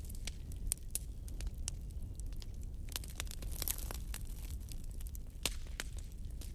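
Fire in a fireplace crackling, with frequent sharp snaps and pops at irregular intervals over a low steady rumble of the flames.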